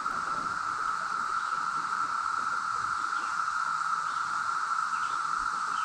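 Chorus of 17-year periodical cicadas (Brood X): a steady, unbroken drone held at one high pitch.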